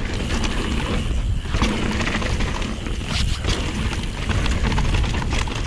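Mountain bike riding down a rough dirt trail: a steady rumble of wind and tyre noise on the action camera's microphone, with frequent clatters as the bike rattles over bumps.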